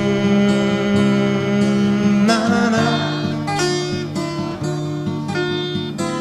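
Music: an acoustic guitar playing held, strummed chords in an instrumental stretch of a song, with no singing here.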